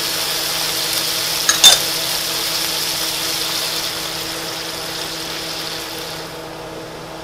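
Minced shallots and butter sizzling in duck fat in a skillet, with a sharp clink of the spatula against the pan about one and a half seconds in. A steady low hum runs underneath, and the sizzle fades near the end.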